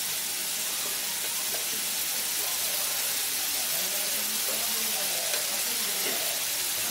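Wet masala of tomato, ginger paste and ground spices frying in mustard oil in a kadai, with a steady sizzle and bubbling as it cooks down.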